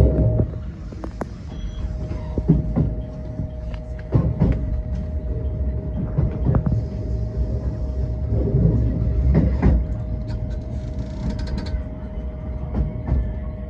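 Electric passenger train running, heard from inside the car: a steady low rumble and a constant hum, with irregular knocks as the wheels pass over rail joints and points.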